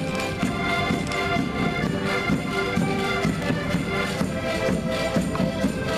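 A large ensemble of Portuguese concertinas (diatonic button accordions) playing a traditional tune together while marching, with sustained chords over a steady rhythmic pulse in the bass.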